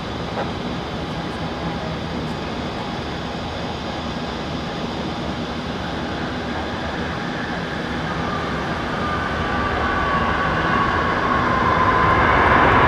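Boeing 737-400's CFM56 turbofan engines rumbling as the airliner rolls out after landing toward the listener, growing louder over the last few seconds, with a high whine that gets stronger and slides slightly down in pitch.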